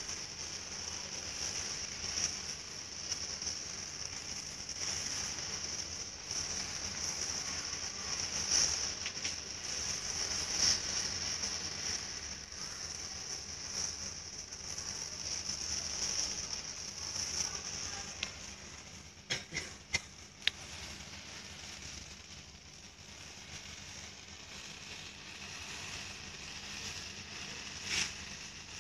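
A large pile of burning matchsticks hissing steadily. The hiss dies down about two-thirds of the way through, with a few sharp pops then and one more near the end.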